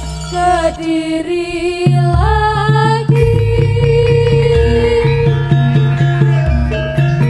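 Music accompanying the barong dance: a wavering sung melody over a steady drum beat and low sustained tones.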